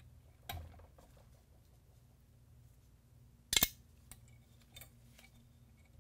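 Small steel rifle parts clicking and clinking as the VZ 2008's magazine release and its spring are worked out of the receiver: a light knock about half a second in, one sharp metallic click about three and a half seconds in, then a few faint ticks.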